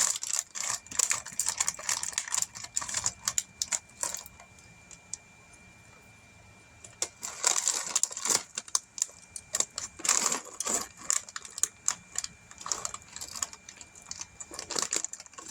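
Loose plastic Lego pieces clicking and clattering as hands rummage through them looking for a piece, with a pause of about three seconds around four seconds in. A faint steady high-pitched tone runs underneath.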